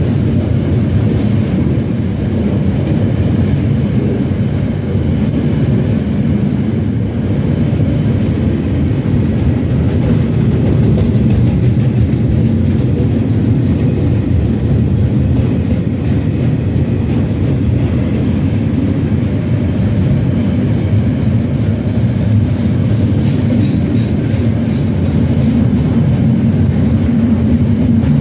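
Container wagons of a freight train rolling past close by: a loud, steady rumble of steel wheels on the rails.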